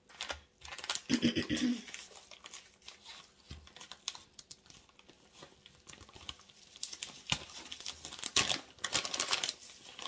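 Plastic bag of shredded cheese crinkling as it is handled, the crackling densest near the end, with a brief murmur of a voice about a second in.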